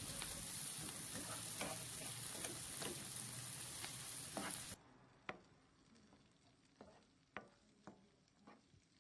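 Diced onion, sweet pepper and tomato sizzling in a little oil in a nonstick pan while a plastic spatula stirs them, with small scrapes and taps among the steady sizzle. About five seconds in the sizzle cuts off abruptly, leaving only scattered taps and scrapes of the spatula against the pan.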